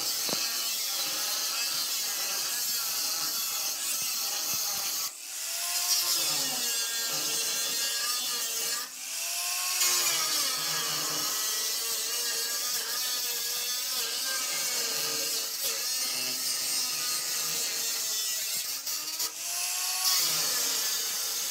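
Small electric angle grinder running under load, its disc grinding on steel body metal and throwing sparks. The sound drops out briefly about 5, 9 and 20 seconds in, and each time the motor winds back up in pitch as the disc comes off and goes back on the work.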